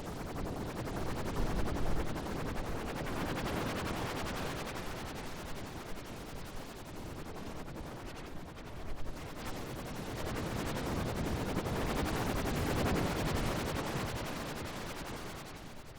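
A harsh, rapid crackling sound effect, like a dense stream of tiny clicks, that swells louder twice and eases off near the end.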